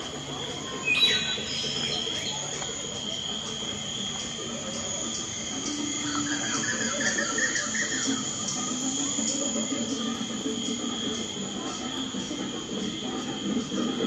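Steady, high-pitched drone of insects in the trees, with a short sharp falling call about a second in and faint distant voices murmuring.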